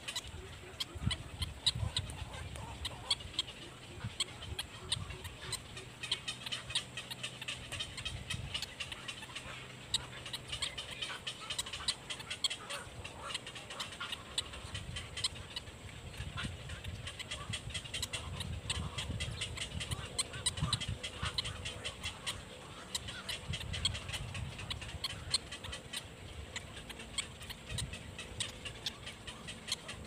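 Black-crowned night heron chick begging at the nest with a rapid run of short clicking calls while the adult feeds it, over a low rumble that comes and goes.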